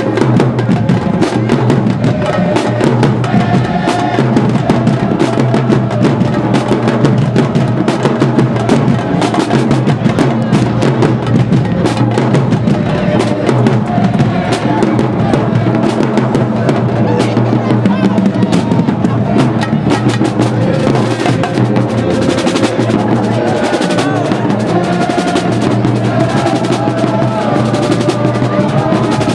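Marching band playing in the stands: brass (sousaphones, trombones, trumpets) over a drumline of snare drums, bass drums and crash cymbals. It plays a loud, continuous tune with rapid drum strokes under the horns.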